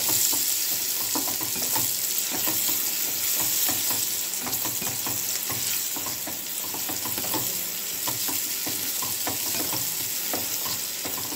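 Sliced onions and green chilli sizzling in hot oil in a metal pan, stirred with a wooden spatula that clicks and scrapes against the pan many times. The onions have fried down soft and brown, the base stage of the gravy.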